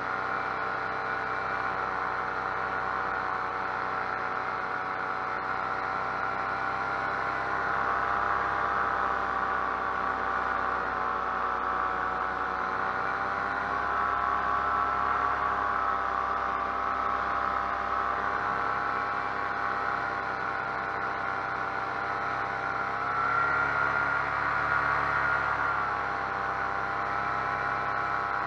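Paramotor engine and propeller running steadily in flight, a continuous drone that briefly gets louder and wavers in pitch about three-quarters of the way through.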